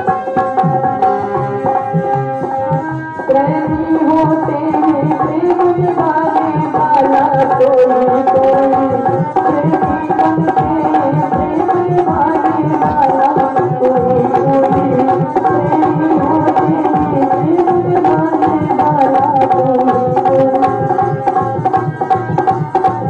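Instrumental music interlude: tabla playing a steady rhythm under a melody instrument. The melody holds long notes at first, then grows louder and starts moving about three seconds in.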